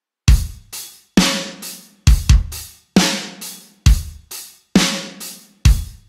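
Drum-kit intro to a rock music track: a heavy kick-and-cymbal hit about once a second with lighter drum hits between, starting a moment in.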